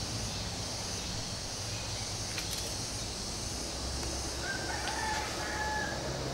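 A rooster crowing once, a held call about four and a half seconds in that lasts just over a second, over a steady high hiss.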